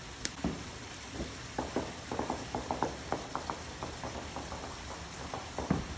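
Wood fire crackling and popping in a Solo Stove fire pit over a steady rush of running water from a garden waterfall, with a quick run of pops in the middle. A low boom from distant fireworks near the end is the loudest thing.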